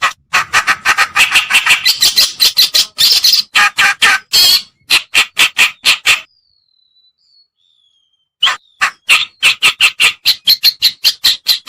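Kerakbasi (reed warbler) lure call: a loud, harsh, rasping chatter of rapid notes, about five or six a second, breaking off after about six seconds, with a few faint thin whistles in the pause, then starting again about two seconds later.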